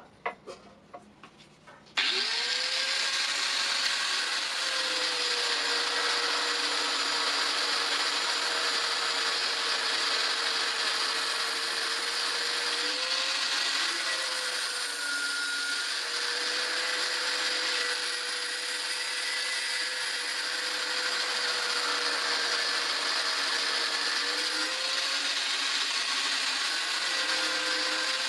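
A few metal clinks, then an electric power grinder switches on about two seconds in and runs steadily on metal. Its motor tone dips slightly now and then as it is pressed into the work.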